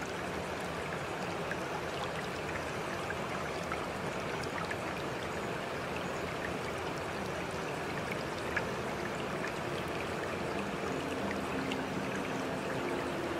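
Steady hiss of running water, like a stream, with a few faint drips. Soft sustained music notes begin to come in near the end.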